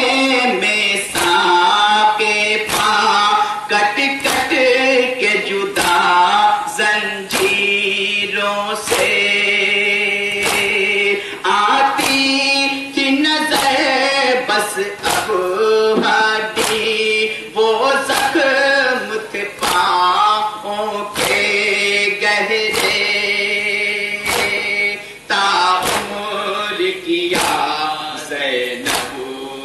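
Men's chorus chanting a Muharram nauha in unison, with rhythmic matam: open hands slapping chests together, a sharp slap about once a second.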